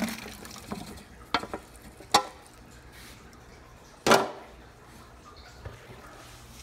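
Handling noise: a few sharp clacks and knocks of plastic containers and gear being handled, the loudest about four seconds in.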